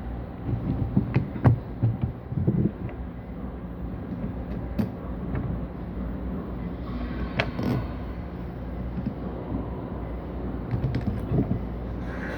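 Small knocks and clicks of solenoid valve parts being handled and fitted back together during the repair, busiest in the first few seconds and again twice later. A steady low mechanical hum runs underneath.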